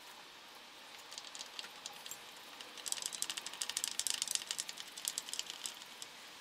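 A rapid run of small clicks and rattles from hand work refitting parts in a car's engine bay. It starts about a second in, is densest between about three and six seconds in, then stops.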